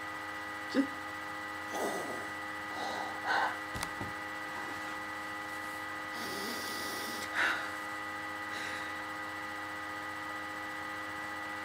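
Steady electrical hum of the recording setup, several thin constant tones held throughout, with a few brief soft noises here and there and a light bump about four seconds in.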